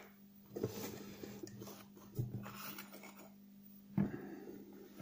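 Plastic spools of fishing line handled on a wooden table: faint rustling and light taps, with a sharper knock about four seconds in as a spool is set down. A faint steady hum lies under it.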